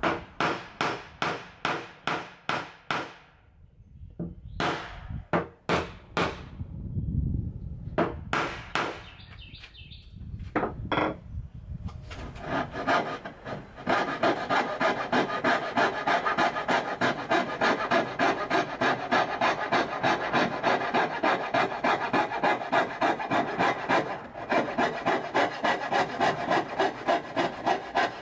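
Hand tool worked back and forth on oak in rhythmic rasping strokes: short runs of strokes with pauses in the first half, then a steady run of about three strokes a second from about halfway through.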